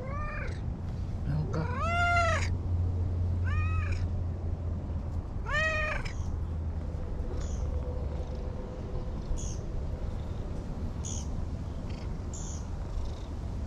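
A cat meowing four times in about six seconds, each call rising and then falling in pitch. The second call is the longest and loudest.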